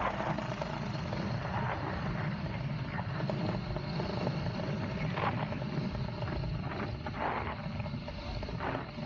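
Paramotor trike's engine and propeller running steadily in flight, with wind noise on the microphone that gusts a few times.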